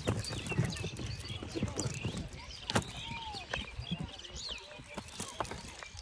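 Irregular light knocks and slaps of freshly caught small fish flapping on a wooden boat floor, with the rustle of a fishing net being picked apart by hand.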